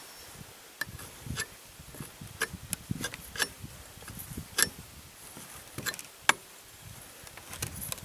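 Irregular light clicks and metal taps from a spark plug wrench and hands working at a chainsaw's cylinder while rope is pushed into the spark plug hole, about a dozen in all, the loudest a little past the middle.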